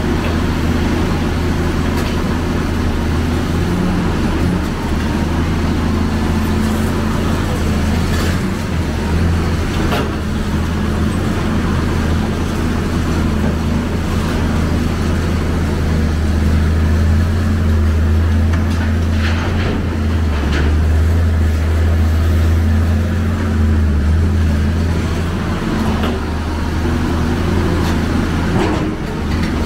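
Hyundai Robex 290LC excavator's diesel engine running steadily under working load, a loud low drone that swells a little in the middle as the machine works. A few short sharp knocks break through now and then.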